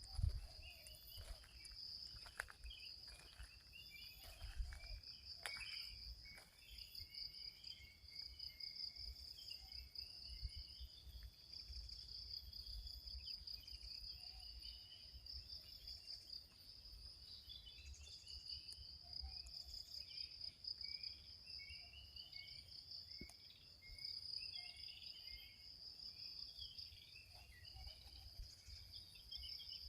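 A steady, fast-pulsing insect trill, with small birds chirping in short, varied phrases over it. A few soft knocks in the first few seconds.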